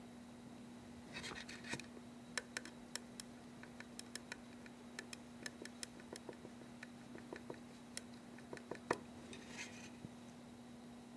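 Faint, quick ticks and scratches of a small paintbrush dabbing water-based rust paint onto the plastic roof of a model boxcar, with two short scrubbing strokes, one about a second in and one near the end.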